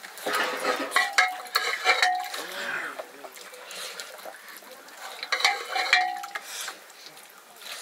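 A metal spoon or ladle stirring and scraping in a cooking pot, with clinks and scrapes. These come in a busy stretch near the start and again a little past the middle.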